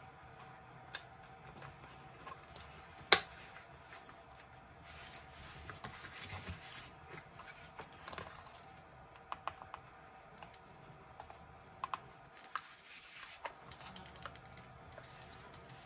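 Hands handling a cardboard phone box and small electronic parts: scattered small clicks, taps and rustles, with one sharp click about three seconds in, over a faint steady hum.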